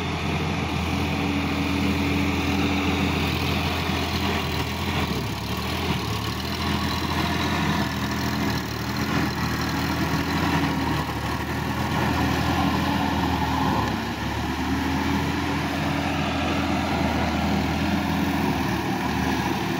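Sonalika DI-50 RX tractor's diesel engine running steadily while it pulls a tiller through the mud of a flooded paddy field.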